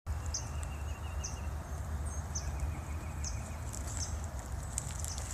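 Marsh ambience: short, high chirps repeating about once a second over a low, steady rumble, with a faint thin trill now and then.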